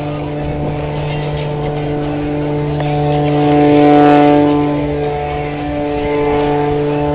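Aerobatic stunt plane's piston engine and propeller running at high power with a nearly steady pitch, swelling louder about four seconds in and then easing back.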